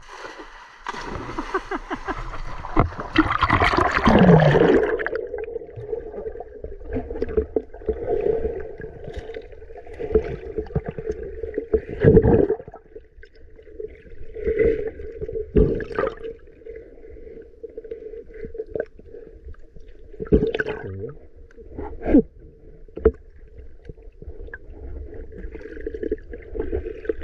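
A cast net splashing down into a shallow river, followed by muffled underwater sound with a steady hum and irregular sharp knocks and clunks as the net lies over the stones.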